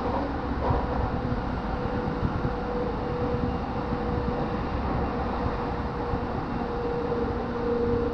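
JR Joban Line commuter electric train running at speed, heard from inside the carriage: a steady rumble of wheels on the rails with a steady hum over it.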